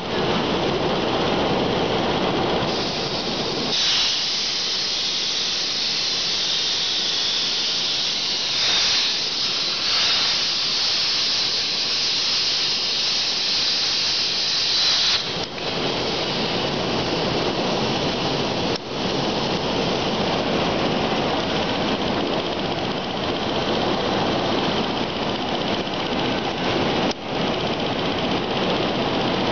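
CNC air plasma cutting torch cutting steel plate: a loud, steady hiss that stops about halfway through. After that a broader, lower steady machine noise carries on.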